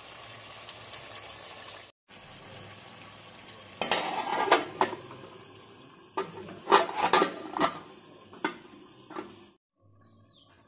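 Aluminium plate set down and shifted on an aluminium cooking pot as a lid, a run of sharp metal clanks and scrapes from about four to nine seconds in, over a steady hiss.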